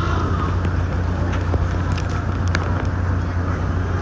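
A motor vehicle running with a steady low rumble, with a few light clicks over it.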